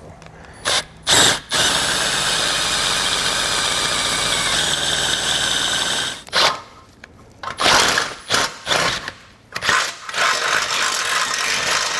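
Cordless Milwaukee Fuel drill boring through the steel frame rail of a car to enlarge a factory hole. Two short trigger bursts come first, then a steady run of about four and a half seconds, then a string of short start-stop bursts.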